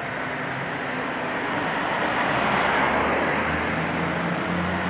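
Road traffic passing close by: tyre and engine noise from cars and fire apparatus swells about halfway through, and a low engine drone builds over the last couple of seconds as another vehicle approaches.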